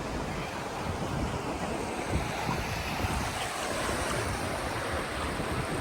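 Sea waves washing in the shallows, a steady rushing hiss, with wind buffeting the microphone in uneven low rumbles.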